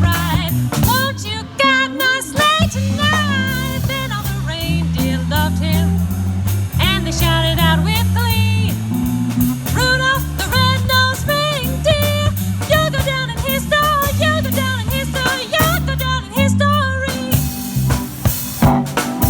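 A song with a singing voice over a drum kit and bass. The voice stops about two seconds before the end, leaving the drums and instruments.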